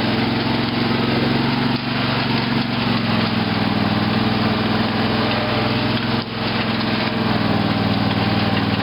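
Lawn tractor's 18.5 hp Briggs & Stratton Intek engine running steadily as the tractor is driven off-road, with two brief dips in level, about two and six seconds in.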